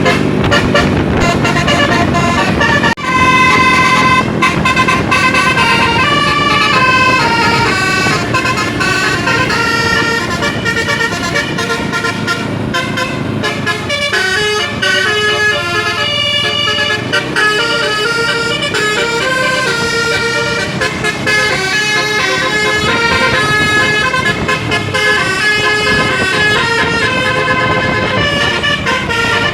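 Bus 'telolet basuri' musical air horn playing a tune, its horn tones stepping from note to note with several sounding together. There is a brief break about three seconds in.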